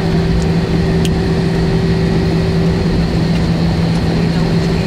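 Airliner cabin noise from inside the passenger cabin: the jet engines and airflow make a steady, loud drone with an even hum. There are a couple of faint ticks about a second in.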